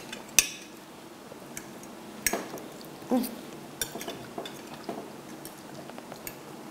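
Cutlery clinking and scraping on plates while people eat, in scattered sharp clicks. The loudest click comes about half a second in.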